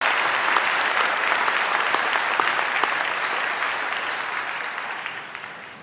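Audience applauding, a dense patter of clapping hands that gradually dies away toward the end.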